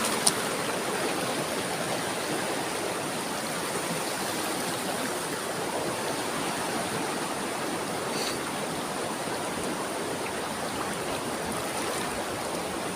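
Steady rushing of water from a small waterfall and the fast-flowing river below it.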